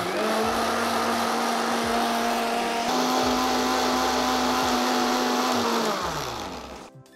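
Electric mixer grinder running with a steady motor whine as it grinds fried curry leaves, whole spices and cold water into a fine paste. Its pitch steps up slightly about three seconds in, and near the end it is switched off and winds down.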